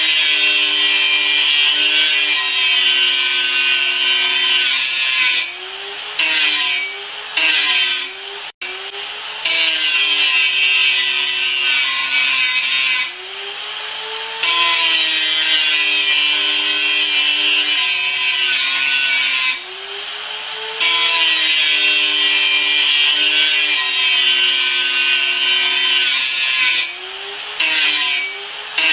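Electric grinder grinding in passes of about five to six seconds, a loud hiss over a motor whine that sags in pitch and recovers. Between passes the hiss drops away for a second or so and the motor runs more quietly.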